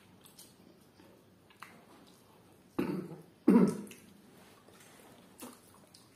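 Two short, loud throat sounds from a person at the table, about half a second apart and about three seconds in, the second the louder, amid faint clicks and smacks of eating with the hands.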